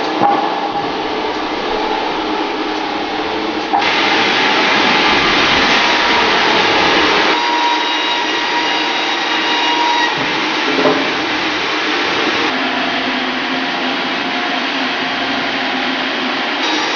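Sawmill band saw headrig cutting through a log: a loud, steady rushing machine noise with a faint whine. It gets suddenly louder about four seconds in.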